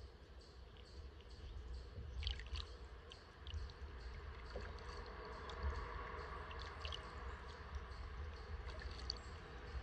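Kayak paddle strokes: the blades dipping and pulling through calm water, with small splashes and drips, over a steady low rumble.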